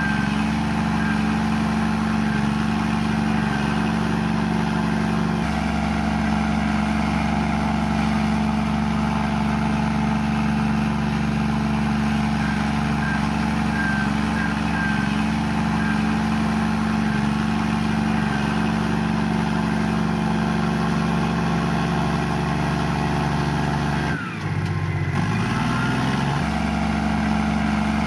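Komatsu bulldozer's diesel engine running steadily under work. About 24 seconds in, its note briefly drops, then climbs back up.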